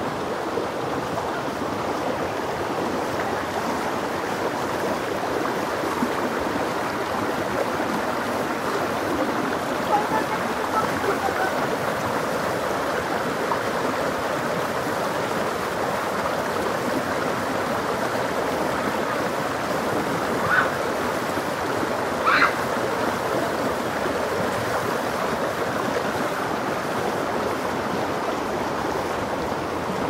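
Fast-flowing woodland stream rushing steadily over leaf litter and rocks. Two brief high-pitched sounds stand out about two-thirds of the way through.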